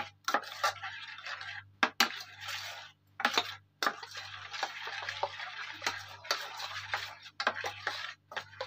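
Metal spoon stirring batter in a steel pot, scraping round the pot with irregular clinks against its sides.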